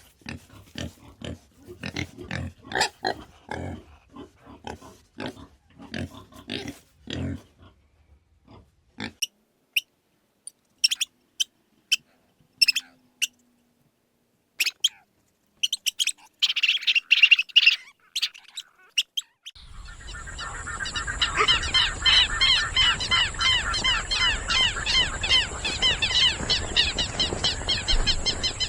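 Animal calls: rapid low grunts for the first nine seconds or so, then a few scattered clicks and short chirps, and from about twenty seconds in a dense, continuous chorus of chirping calls with a steady high tone behind it.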